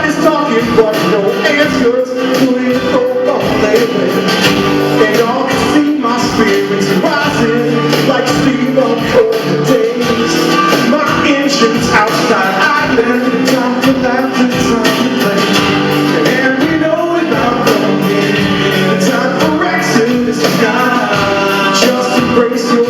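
Live rock music with a singer over a steady drum beat, played loud.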